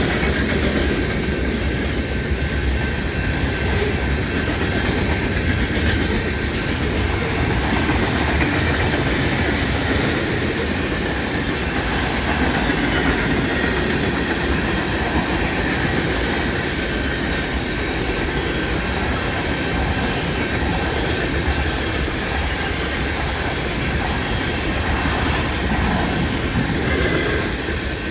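Freight cars of a long CN freight train rolling past at track side: a steady rumble of wheels on rail with clickety-clack over the rail joints and a thin, steady high wheel squeal.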